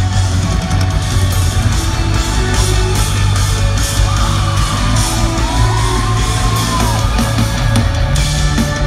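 Rock band playing live through a concert PA, with a steady heavy bass, a regular drum beat and electric guitar, heard from inside the audience in a large hall. Fans yell and whoop over the music.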